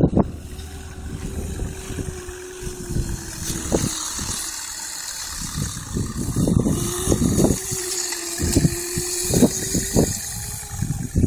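Small motor of a child's mini dirt bike running with a steady hum that drops out for a few seconds in the middle, over uneven low rumbling and irregular knocks.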